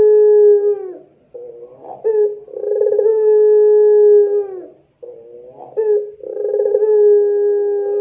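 Puter pelung ringneck dove cooing: the tail of one long, drawn-out coo ends about a second in, then two more follow. Each is a brief note and then a long held coo that drops in pitch as it stops.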